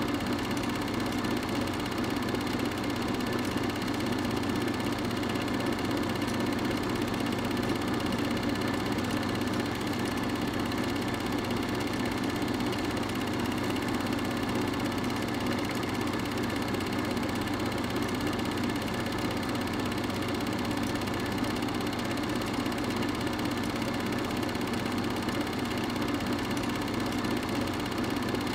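Steady mechanical whirr and hum of an 8mm film projector running, unchanged across the picture's cuts: the transfer noise of a silent home movie, with no sound from the snowy scenes themselves.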